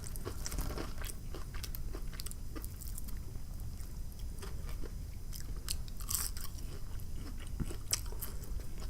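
Close-up chewing and biting of crisp fried fast food, with a steady run of small crunches and clicks; a few louder crunches come about six and eight seconds in.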